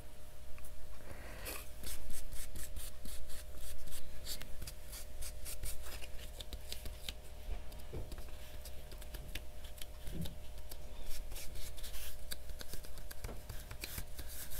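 Hands handling and rubbing loose gold leaf flakes on a paper journal page: a dense, irregular run of light crinkling, crackling and scratching.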